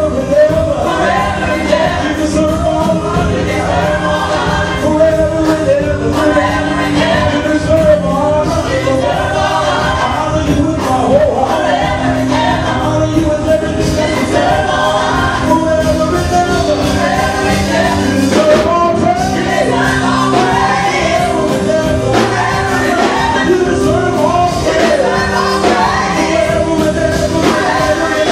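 Live gospel song: a male lead singer with backing vocalists, over a band with electric bass and keyboard.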